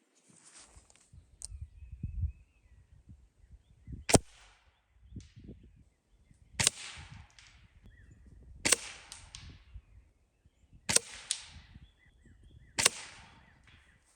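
Gamo Whisper Swarm Mach 1 .22 air rifle firing five shots about two seconds apart, each a sharp crack with a short fading hiss after it. Quieter handling noises come between the shots.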